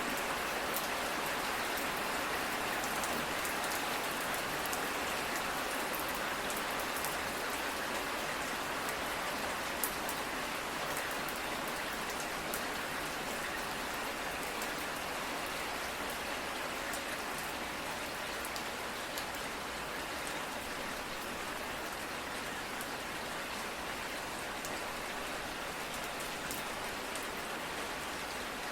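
Steady rain falling, a constant hiss with many individual drops ticking on a surface.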